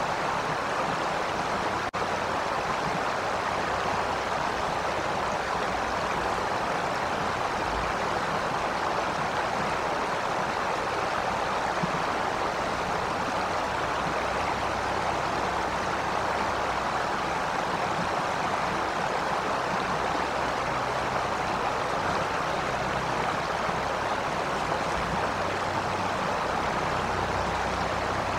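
Steady, even rushing noise with no distinct events, with one faint click about two seconds in.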